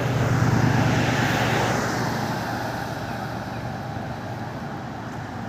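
Road traffic: a passing car, loudest about half a second in, fading steadily as it moves away.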